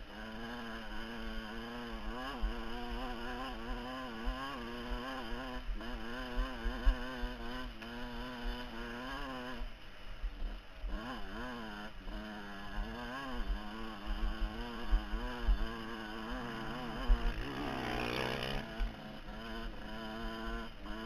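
Dirt bike engine under way, its pitch rising and falling constantly with the throttle over rough ground. Uneven low buffeting runs underneath, and a brief louder swell comes near the end.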